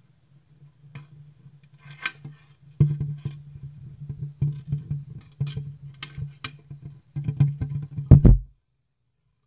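Cats eating canned food off a clear plastic box right over the microphone: irregular clicks and taps of tongues and teeth against the plastic over a steady low hum. The clicks get busier and louder about three seconds in, and a loud thump comes just after eight seconds before the sound cuts off.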